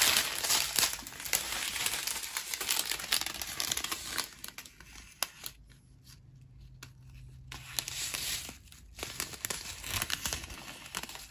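Clear plastic bags of diamond painting drills being opened and handled: crinkling and tearing plastic, loudest in the first few seconds, then quieter with scattered crackles before the rustling picks up again near the end.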